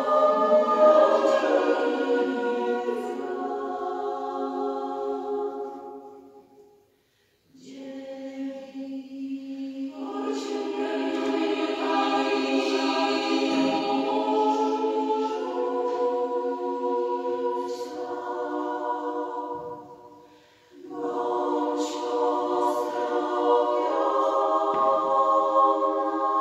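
Women's choir singing a cappella in several parts, in three phrases with short breaks about seven seconds in and about twenty seconds in.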